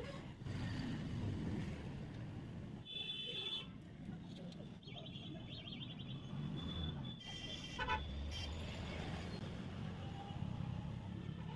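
Background street noise: a steady low rumble with several short, high-pitched tones sounding now and then.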